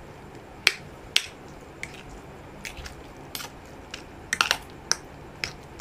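Metal fork and spoon clinking and tapping against a ceramic plate while durian flesh is mashed and mixed into glutinous rice. The taps come irregularly, a dozen or so sharp clicks, some in quick pairs.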